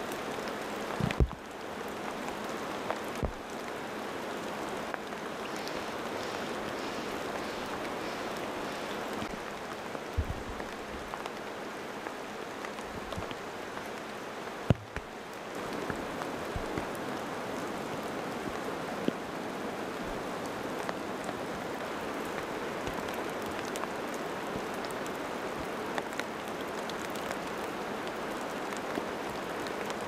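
Steady rain falling and dripping through moss-covered forest branches, an even hiss with now and then a louder single drop.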